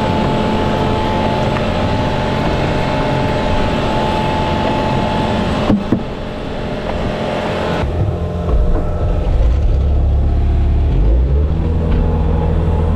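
Bobcat skid steer's diesel engine running steadily, with a short knock about six seconds in; from about eight seconds the engine note grows deeper and louder.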